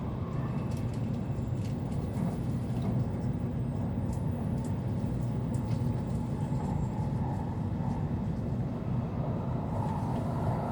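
Joetsu Shinkansen Toki train running, heard inside the passenger cabin: a steady low rumble of wheels and motors with a few faint ticks.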